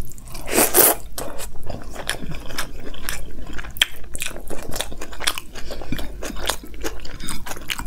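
Close-miked chewing of a mouthful of vegetable dum biryani eaten by hand: a steady run of small wet mouth clicks and crunches, with one louder noisy sound about half a second in.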